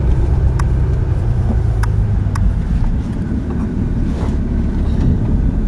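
Steady low rumble of a vehicle's engine and road noise heard from inside the cab while driving, with a few light clicks.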